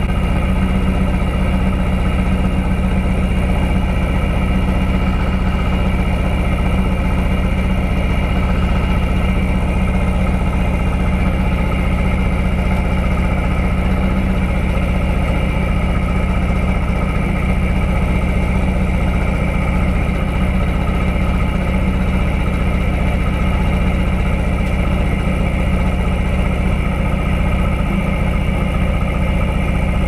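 1999 Lotus Esprit's 3.5-litre twin-turbo V8 idling steadily with an audible miss: two cylinders are getting no spark because of a fault in the ECU's coil-driver circuit.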